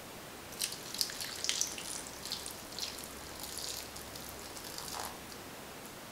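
Milk poured from a small jug onto dark chocolate chips in a glass bowl: irregular splashing and trickling that starts about half a second in and stops about five seconds in.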